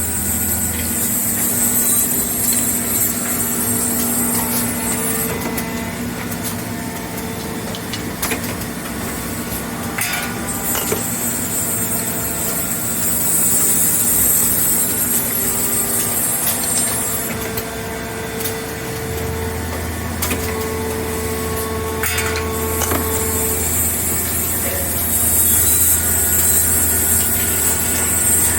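Robotic knife-handle drilling and sawing machine running: a steady machine hum with long stretches of high hiss and a few sharp knocks.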